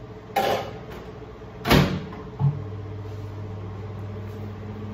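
A door shuts with a loud thud just under two seconds in, a click follows, and then a dial-controlled microwave oven starts running with a steady low hum.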